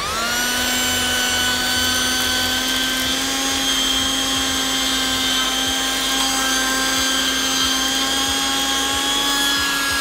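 Sehentools CV108 60 W 12 V handheld car vacuum switched on, its motor whine rising quickly to a steady pitch and running evenly as the bare nozzle sucks up loose dirt and grit, then switched off at the end.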